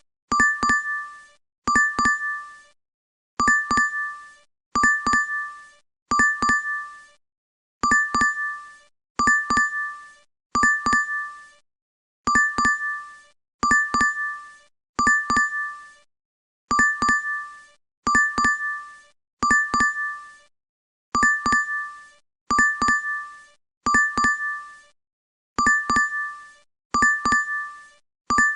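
DoorDash app notification chime, looped: a short double-struck ding repeating about every second and a half, each one fading within a second.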